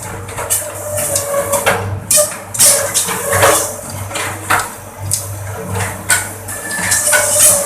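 Bamboo skewer-making machine (a slicer with two planers) running with a steady hum, while bamboo strips clatter and rattle through it in irregular bursts of clicks.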